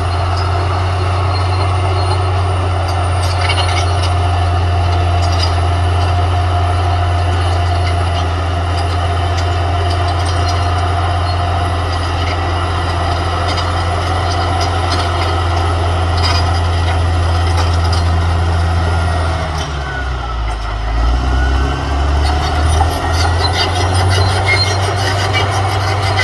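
Caterpillar D6R XL bulldozer's diesel engine running with a steady low drone, which sags lower and uneven about twenty seconds in and then picks back up, with light metallic clanks throughout.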